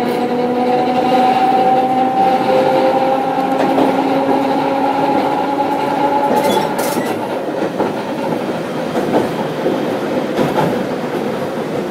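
Tosa Electric Railway 700-series streetcar with nose-suspended traction motors running: a motor and gear whine climbs slowly in pitch for about six seconds, then fades out, leaving wheel and track noise with a few clacks over rail joints.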